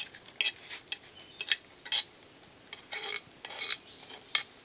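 A metal spoon scraping ghee-fried coconut pieces out of a small pan into a pot of thick jaggery payasam: irregular short clinks and scrapes of metal on metal, several to a second at times.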